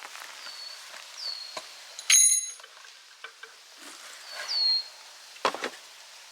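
A single sharp metallic clink that rings briefly with a bell-like tone about two seconds in, and a dull knock near the end. Wild birds whistle short falling notes several times in the background.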